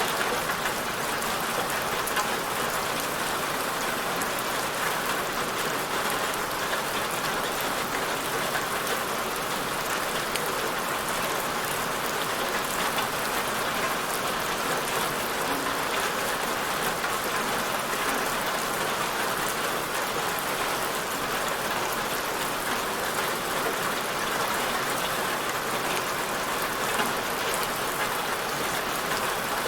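Steady rain falling on a surface, an even hiss with no breaks or changes.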